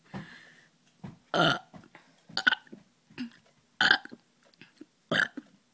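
A girl burping deliberately in a burping contest, a run of four short, loud burps about a second and a half apart, with smaller throaty sounds between them.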